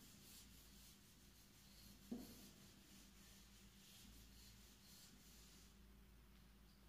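Faint marker strokes on a whiteboard: a quick run of short scratchy strokes as handwriting goes on, stopping near the end. There is one soft thump about two seconds in.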